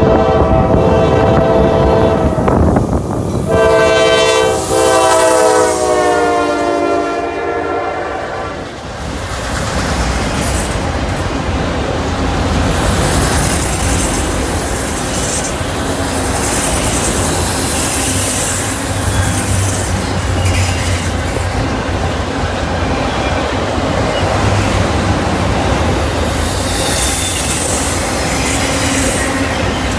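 Norfolk Southern freight locomotive's horn: a blast cut off about two seconds in, then a longer blast of about five seconds whose pitch drops as the locomotive passes. After it, a long train of autorack cars rolls by with a steady rumble and clatter of wheels on the rails.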